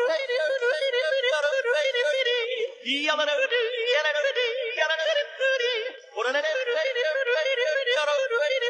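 Background music: a high melody with a strong, regular wobble in pitch, breaking off briefly about three seconds in and again about six seconds in.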